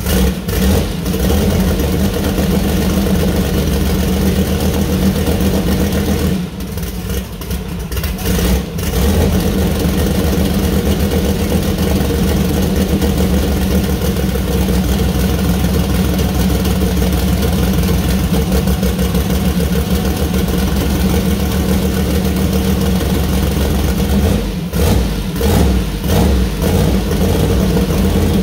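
Newly built 427 cubic inch twin-turbo LS V8 running on its first start-up. It runs steadily, drops in level briefly about six and a half and eight and a half seconds in, and wavers several times near the end.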